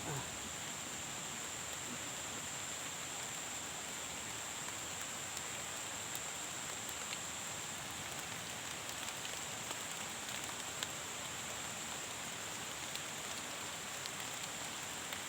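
Steady rain falling, an even hiss with scattered ticks of individual drops. A thin, steady high-pitched tone sits behind it.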